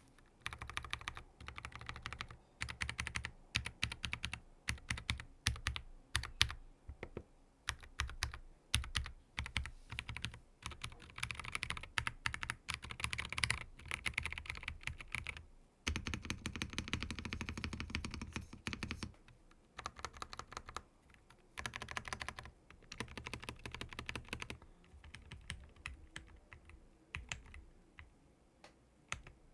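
Typing on a custom Akko 5075B mechanical keyboard fitted with JWK T1 switches and ISA double-shot keycaps. Fast runs of keystrokes are broken by short pauses.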